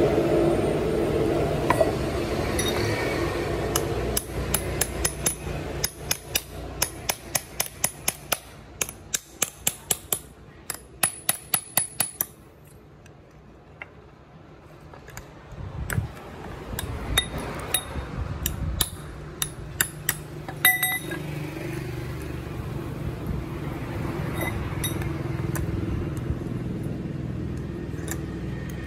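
Metal hand tools (a short steel pipe and pliers) clicking and tapping against steel wire set in a bamboo stick: a run of sharp metallic clicks, about one or two a second, starting about four seconds in, then a pause and a second shorter run. Under it is a steady low hum that is loudest near the start and the end.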